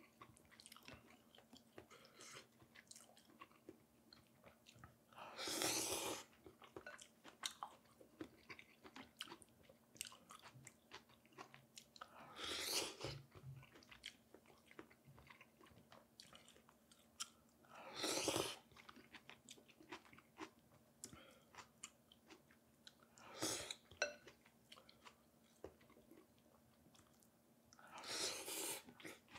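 A person eating pho close to the microphone: quiet chewing and mouth clicks, broken by a louder slurp about every five to six seconds, five in all.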